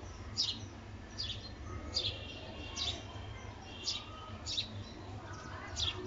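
Peach-faced lovebird chirping: short, sharp high chirps about once a second, seven in all.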